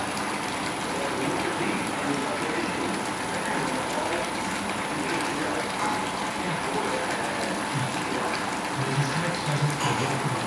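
Hot lambic wort gushing from a pipe outlet into a shallow metal coolship, a steady splashing pour onto a foamy surface as the coolship fills.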